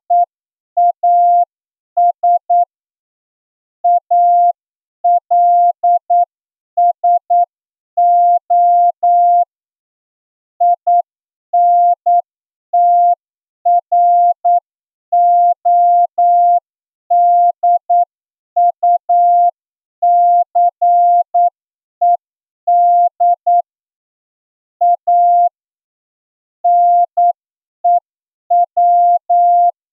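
Morse code sent as a single steady tone keyed on and off: short dots and longer dashes with small gaps between letters and longer ones between words, at a slow speed of about 8 words per minute.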